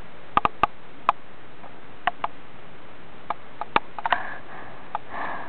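A dozen or so light, sharp clicks and taps at irregular intervals, with a short soft rustle about four seconds in and again near the end.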